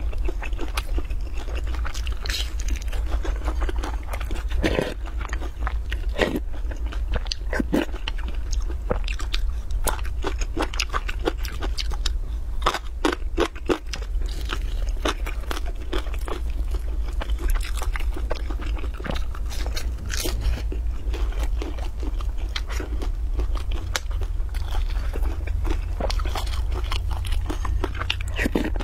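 Close-miked biting and chewing of a crisp pan-fried flatbread with a green filling, dense irregular crunching clicks throughout.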